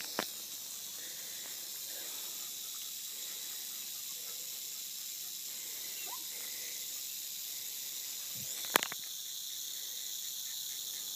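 Coiled diamondback rattlesnake rattling its tail in a continuous high buzz, the defensive warning of a snake that has been bayed by a dog. A single sharp click sounds about two-thirds of the way through.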